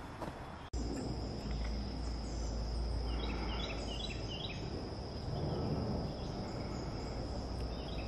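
Insects droning on one steady high note, with a low rumble underneath; a run of short chirps comes about three seconds in.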